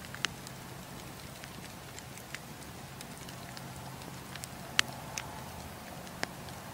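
Wood campfire burning with a steady soft hiss and scattered sharp crackles and pops, the loudest pop nearly five seconds in.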